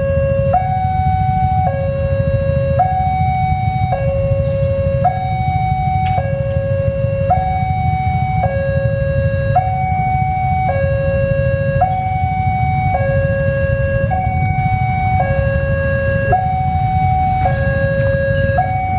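Railway level-crossing warning alarm sounding a steady two-tone high-low chime, about one cycle a second, signalling an approaching train. Beneath it is a steady low rumble from the approaching diesel train.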